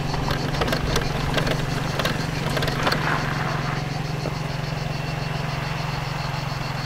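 Small motor scooter engine idling with a steady low hum. A few light clicks and knocks sound in the first three seconds.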